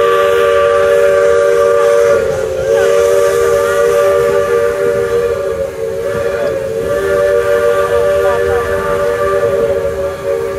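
Chime steam whistle on a narrow-gauge steam locomotive blowing one long, steady blast: a three-note chord that wavers briefly about two and a half seconds in.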